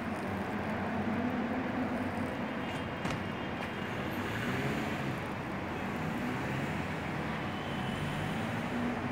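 Steady outdoor street background of distant road traffic, an even rumbling hiss with no separate events standing out.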